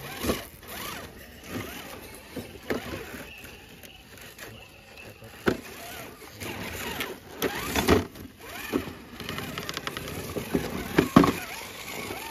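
Small RC crawler trucks climbing over rocks: irregular knocks and scrapes of tyres and chassis against stone, with a faint whine from their electric motors. The sharpest knocks come about 5 seconds in, near 8 seconds, and about 11 seconds in.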